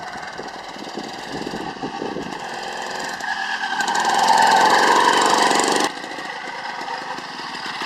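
Two-stroke motorised-bicycle kit engine running just after its first start, freshly built and not yet run in. It runs steadily, is revved up and grows louder from about three seconds in, then drops back suddenly to a lower idle near six seconds.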